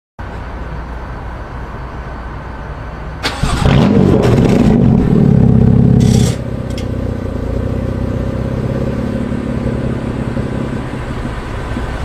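BMW M3 F80 CS's twin-turbo straight-six running through a valved catback exhaust and catless downpipe. A steadier, quieter sound comes first; about three seconds in the engine gets much louder with a quick rise in revs and stays loud for about three seconds, then drops back to a steady idle.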